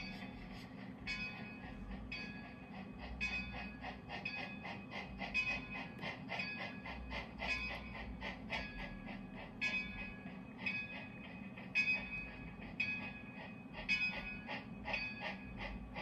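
Model steam locomotive's onboard sound playing as it creeps in: a bell ringing about once a second over quicker, fainter exhaust chuffs and a steady low hum.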